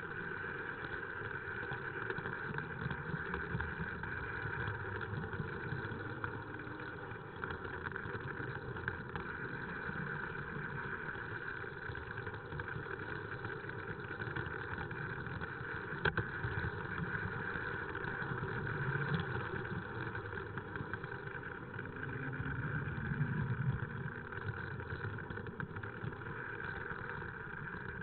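Tri-ang Jinty OO-gauge model locomotive running steadily along the track, its electric motor and wheels making a continuous whirring hum. There is one sharp click about halfway through.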